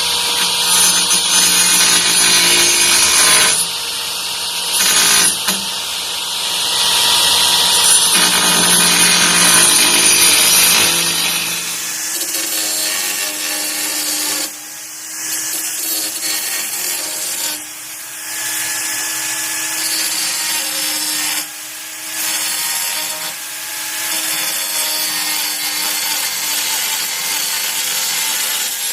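Titanium AG710 710-watt angle grinder running under load against a workpiece. It is loud and harsh for about the first twelve seconds, then runs quieter with a steady hum, easing off briefly three times as the load comes off.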